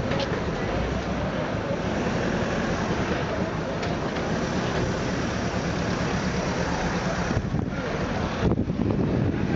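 Blackpool Balloon double-decker electric tram running close by on the promenade track, a steady low rumble, with wind buffeting the microphone.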